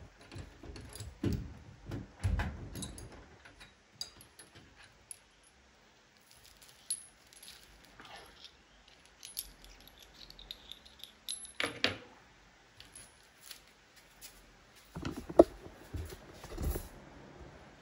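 Metal clinking and knocking of a wrench and loose transportation bolts as the bolts are removed from the back of a front-loading washing machine: scattered light clinks, with louder knocks about two-thirds of the way in and near the end.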